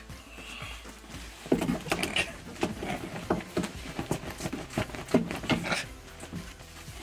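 Clothes being handled and stuffed onto a closet shelf: a run of irregular cloth rustles, flaps and soft thumps starting about a second and a half in.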